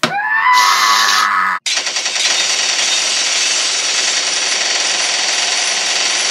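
Comedic diarrhea fart sound effect: a long, continuous wet, rapid rattling that runs for about five seconds, opening with a short rising squeal.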